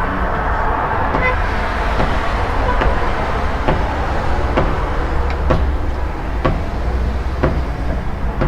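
Workers hammering at a steady pace, about one blow a second, over the continuous rumble of street traffic.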